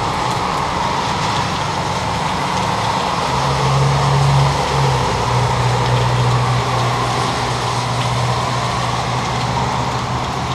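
Steady vehicle noise, with a low engine hum that comes up about three seconds in and holds.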